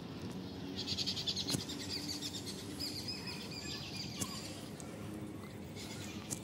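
Birds chirping: a quick run of high chirps about a second in and a longer high call a couple of seconds later, over steady low outdoor background noise, with a few sharp clicks.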